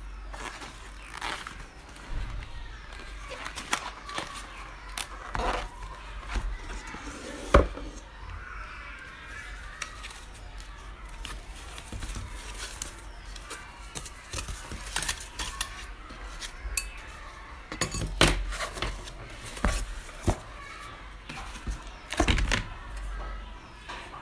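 Unboxing handling: a cardboard box opened and packing foam rustled, with stainless steel skewer rods and a square steel base plate clinking and knocking against each other and the box. The loudest knock comes about a third of the way through, with another cluster of knocks later on.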